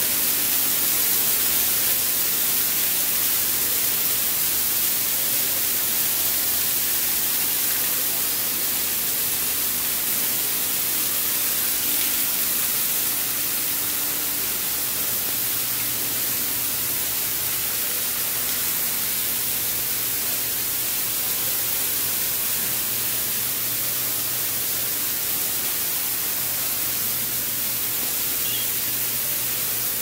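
Steady, even hiss, strongest in the highest pitches, with a faint low hum underneath and no distinct events.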